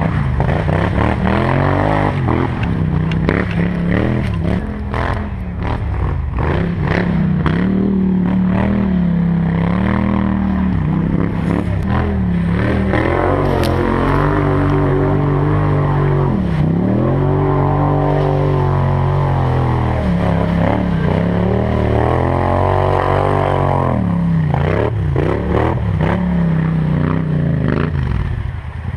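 4x4 ATV engine running under way, its pitch rising and falling repeatedly as the throttle is opened and eased off, with frequent knocks and rattles from the machine over rough ground.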